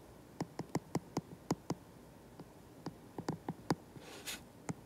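A stylus tapping and clicking on a tablet's glass screen during handwriting: a quick run of sharp little ticks, a pause, then a few more.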